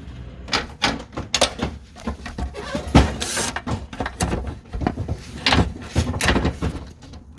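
Irregular metal clanks, knocks and scrapes of hand tools against car body parts and suspension pieces, with the loudest knock about three seconds in.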